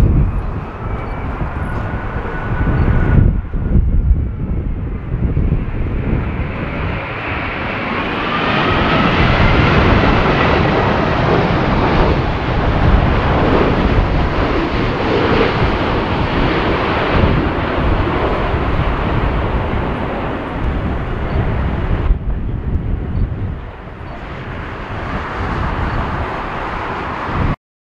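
Jet noise of a Boeing 787-8's Rolls-Royce Trent 1000 turbofans as it passes low on approach and touches down: a loud, continuous rush with a faint whine that glides in pitch, under gusty wind buffeting the microphone. The sound jumps abruptly about three seconds in and again about twenty-two seconds in, and stops suddenly near the end.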